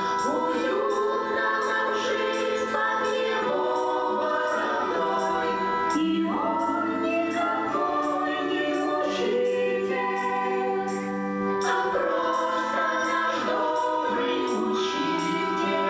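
A group of children singing a song together with instrumental accompaniment.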